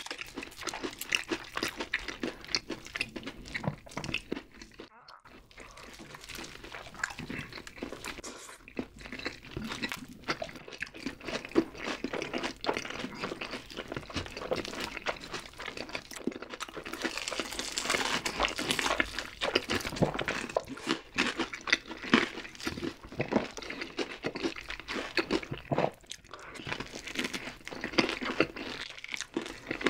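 Close-miked eating sounds of two people biting and chewing Korean fried chicken (sauced yangnyeom and seasoned Bburinkle chicken) dipped in sauce: a steady stream of crunches and wet chewing, briefly quieter about five seconds in.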